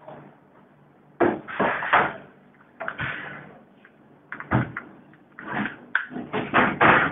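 A string of irregular knocks, clunks and scrapes from parts and tools being handled in a meat slicer's motor housing while its drive belt is fitted. They start about a second in.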